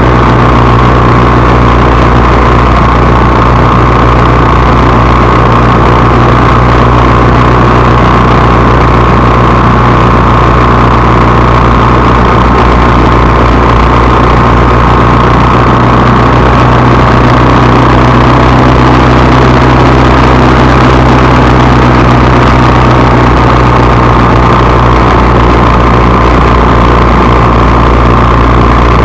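Steady, very loud engine drone of a vehicle, holding one pitch throughout with a low hum and a midrange whine, heavily overloaded on the recording.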